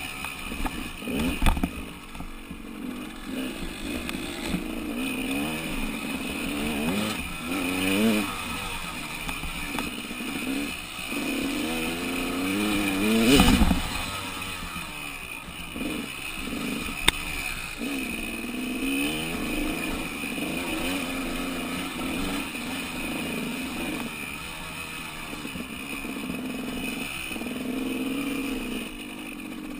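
Dirt bike engine ridden along a bumpy dirt track, its revs rising and falling again and again as the throttle opens and closes. A loud thump about halfway through, with a sharp click a few seconds later.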